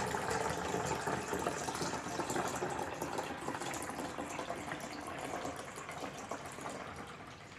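Freshly pressed orange juice pouring through a funnel into a plastic bottle: a steady stream of liquid that slowly gets quieter.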